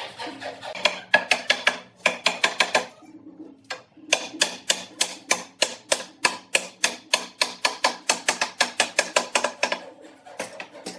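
Rapid, evenly spaced sharp strikes on wood, about five a second, in two runs with a short pause about three seconds in, like a tool tapping steadily at a workpiece.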